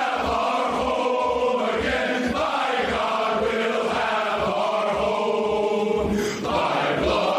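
A group of male voices chanting in unison over a steady deep beat of a little over two thuds a second.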